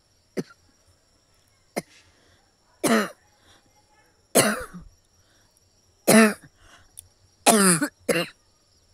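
A person coughing hard and deliberately for a cough challenge. Two short sharp coughs come in the first two seconds, then five loud, harsh, voiced coughs about a second or so apart, the last two close together.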